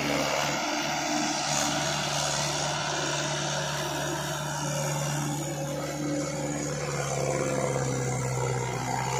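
Trakstar 545 tractor's four-cylinder diesel engine running steadily with an even drone as it pulls a rotavator through wet, muddy paddy ground.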